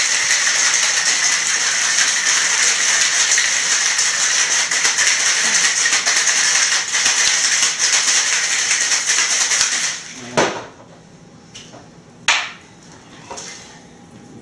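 Ice rattling fast inside a metal cocktail shaker, shaken hard to chill a vodka and chocolate liqueur cocktail. The rattling stops suddenly about ten seconds in, and a few sharp, single knocks of the shaker being handled follow.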